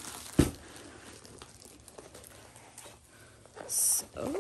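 A rolled diamond-painting canvas handled and unrolled on carpet: a single sharp knock about half a second in, then soft rustling, and a short crinkle of its plastic film near the end.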